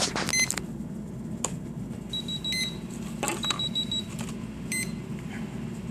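Helicopter's electronic speed controller (ESC) beeping through the motor after the battery is connected. Short beeps repeat about every two seconds, with quicker runs of higher beeps in between, and there are a few handling clicks. The endless beeping is the ESC's sign that it gets no throttle signal through the APM 2.5 autopilot, which the owner takes for a wiring fault.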